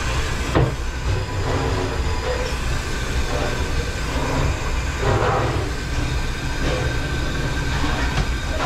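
Steady low mechanical rumble of running machinery, with a sharp click about half a second in and a brief rattling knock around five seconds in.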